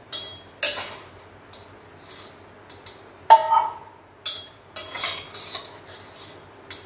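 Steel pots and utensils knocking and clinking in a handful of separate strikes, the loudest about three seconds in, as boiled kidney beans are strained from their cooking water.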